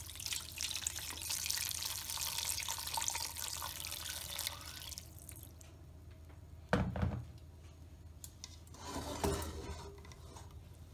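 Water poured from above into a metal cooking pot of frozen mince and chopped onions, a splashing pour for about five seconds that then stops. A dull knock follows about seven seconds in, and a brief rattle a couple of seconds later.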